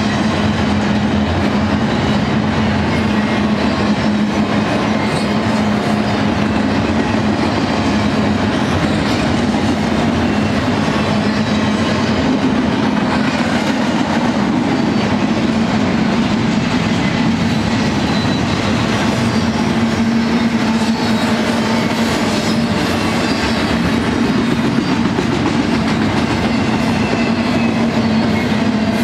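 Double-stack container train's loaded well cars rolling past at speed: a continuous rumble and rattle of steel wheels on rail, with a steady low tone droning underneath.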